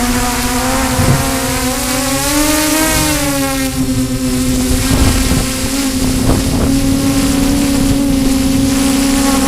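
Drone propellers and motors whining steadily, the pitch rising and falling slightly about two to three seconds in as the craft holds against strong wind. Wind gusts buffet the microphone several times.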